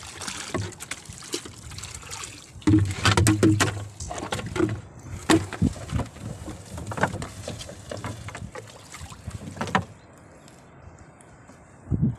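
Repeated knocks and clatter of handling inside a small wooden outrigger fishing boat, as the gill net and a plastic bucket are moved about against the hull, busiest a few seconds in.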